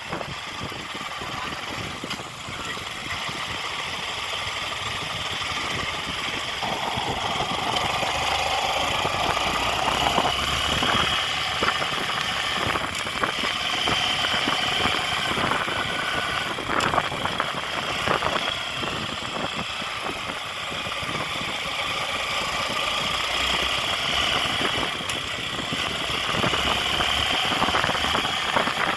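Motor vehicle engine running steadily, a little louder from about eight seconds in.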